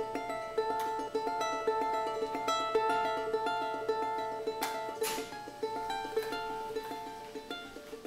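Background instrumental music: a quick, even run of plucked string notes.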